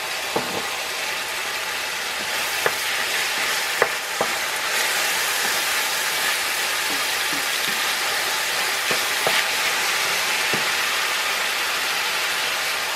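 Ground beef sizzling steadily in an enamel frying pan as a wooden spatula stirs it, with a few short scrapes and knocks of the spatula against the pan.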